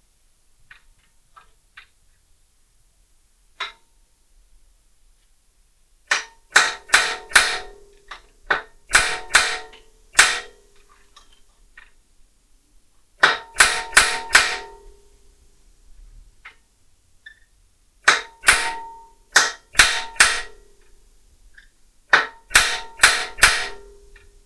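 Hammer blows on steel in four bursts of about five to eight strikes each, roughly two strikes a second, every blow ringing briefly. They are the blows of trying to knock free a seized part on a motorcycle frame, and the part does not budge.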